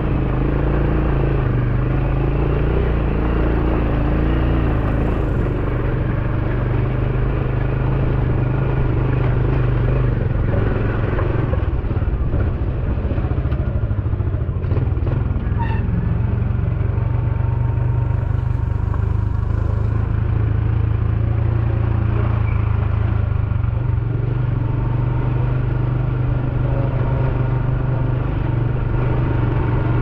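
Small motorbike engine running steadily as it carries a rider along a narrow path, a continuous low hum.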